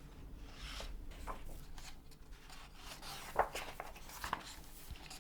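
Faint rustling and small taps of paper being handled, with a sharper tap about three and a half seconds in.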